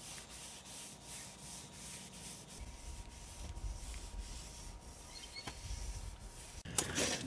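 Cloth rag wiping down a sanded fibreglass boat hull: quick, even rubbing strokes, about three a second, with a louder stroke near the end.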